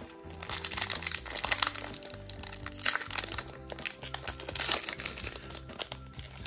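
Foil booster pack wrapper crinkling and tearing as it is pulled open by hand, over background music with steady low notes.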